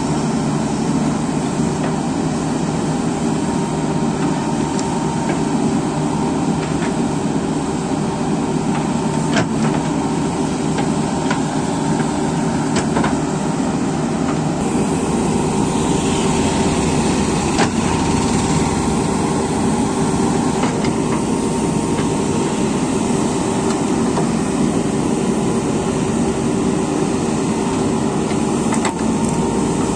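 JCB 3DX Super backhoe loaders' diesel engines running steadily under digging load, with a few sharp knocks of the bucket against soil and rock.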